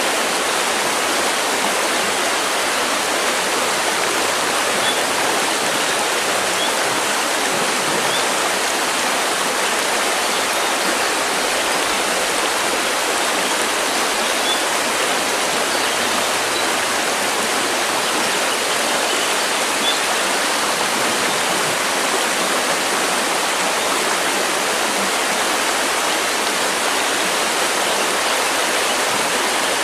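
River water rushing steadily over rocks, a constant even roar of flowing water.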